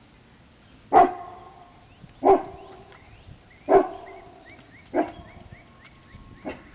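A dog barking four times, single sharp barks spaced about a second and a half apart, with a fainter fifth bark near the end.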